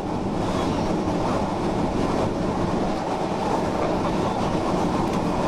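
Steady, loud roar of tornado winds buffeting the chase vehicle and rushing in through its open window.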